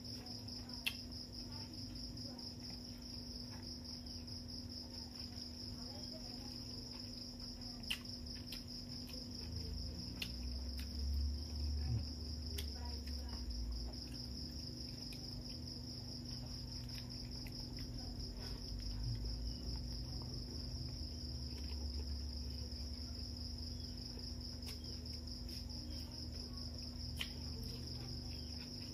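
Crickets chirring steadily in a continuous high pulsing drone, over a low steady hum. A few sharp clicks and soft low knocks of eating and handling dishes at the table come through now and then.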